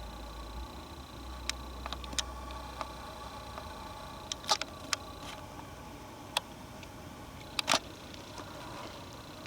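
A handful of sharp, separate clicks and taps at irregular intervals, the loudest two about halfway through and near the end, over a faint steady background hum.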